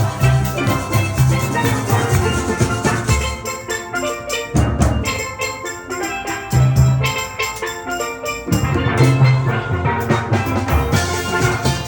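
Live instrumental music from a street band, with a strong bass line and drums keeping a steady beat.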